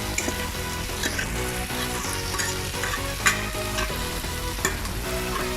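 Meat and vegetables sizzling in a hot pan while being stirred, with a cooking utensil scraping and clicking against the pan and one sharper click about three seconds in.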